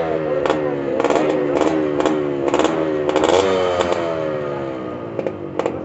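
Motorcycle engine revving with short throttle blips, its pitch sliding slowly down and fading toward the end. Repeated sharp pops from the exhaust punctuate it.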